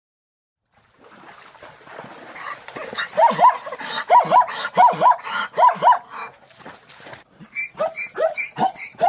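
Zebra calling with a run of barking, yelping calls, first in pairs and then, near the end, quickening into a fast series of about three calls a second.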